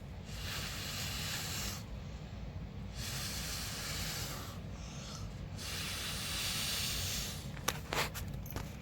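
Three long hissing bursts of air blown across wet acrylic paint to push it apart, each lasting about a second and a half. A few short clicks follow near the end.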